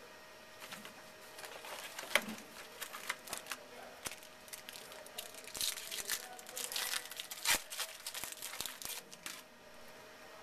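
A trading-card pack's foil wrapper being torn open and crinkled. A dense run of crackles and small tears starts about half a second in and stops shortly before the end.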